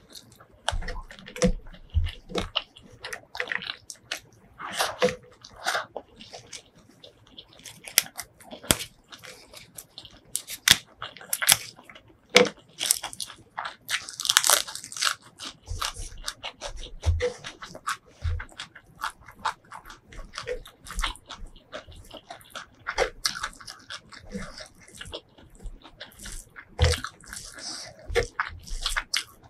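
Close-miked chewing and crunching, with many irregular sharp crunches, as a mouthful of rice, fried fish and raw vegetables is eaten by hand. About halfway through, a bite of a raw green leaf gives the loudest stretch of crisp crunching.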